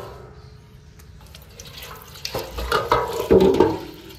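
Tap water running into a sink as a large platter (parat) is rinsed, with louder splashing and knocks of the platter about two and a half seconds in.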